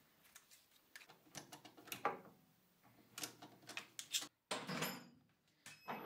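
Light metallic clicks and knocks in short irregular bursts as a small steel cutter holder is worked with a screwdriver and fitted to the milling attachment, setting the cutter tooth to a new angle.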